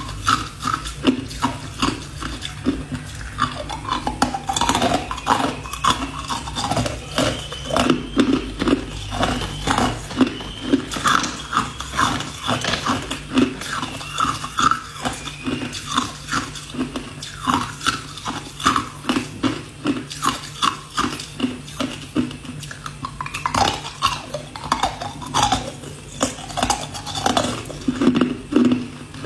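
Ice cubes being bitten and crunched in the mouth, close to the microphone: a steady run of sharp cracks and crunching, several a second.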